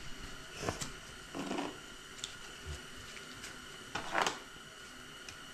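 A knife cutting through the hide and flesh at a hanging deer's neck: three short cutting sounds, two in the first couple of seconds and one about four seconds in.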